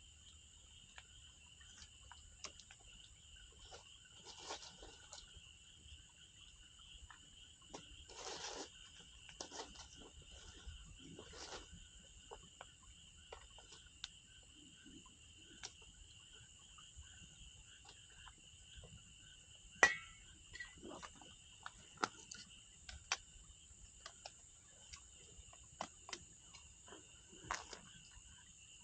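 Wood campfire crackling with scattered sharp pops and snaps, the loudest about twenty seconds in, over a steady high chirring of insects.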